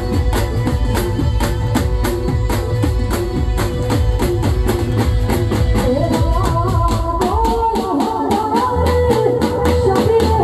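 Live garba folk music: dhol and a drum kit play a fast, steady beat under a sustained melody. A woman's voice starts singing into a microphone about six seconds in.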